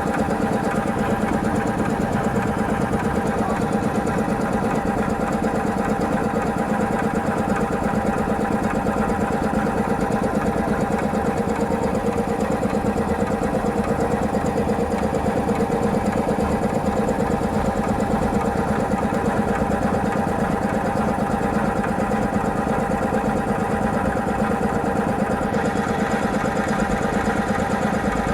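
Air compressor running steadily under load with a fast, even pulsing hum, refilling its tank after the air was released and before the automatic pressure switch cuts it off.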